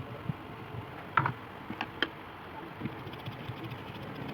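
A few light, sharp clicks and taps of small hard objects being handled, the loudest about a second in and two more near two seconds.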